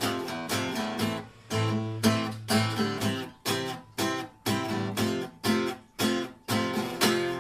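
Acoustic guitar strumming chords in a steady rhythm, about two strums a second, most of them cut off short.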